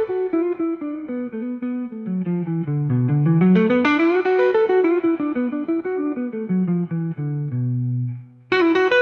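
Background music: a guitar plays a fast melody of quick single notes that runs down and back up. Near the end it holds a low note, drops out briefly, then starts again.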